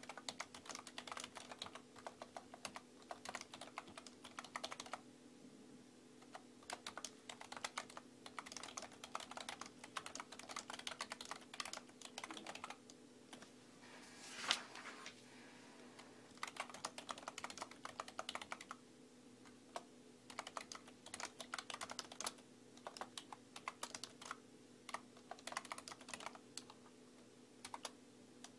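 Typing on a computer keyboard: runs of rapid key clicks broken by short pauses, with one louder knock about halfway through. A faint steady hum sits underneath.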